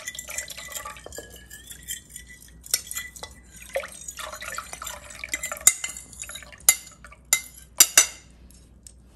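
A spoon stirring and scraping in a dish of wheat starch and water, then several sharp clinks of the spoon against the dish, the loudest between about five and a half and eight seconds in.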